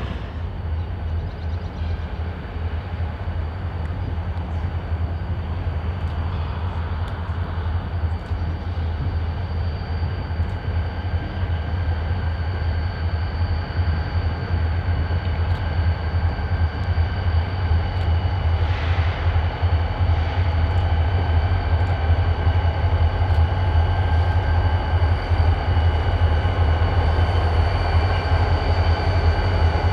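Diesel freight train locomotives running, a deep steady rumble that slowly grows louder, with a thin steady whine above it.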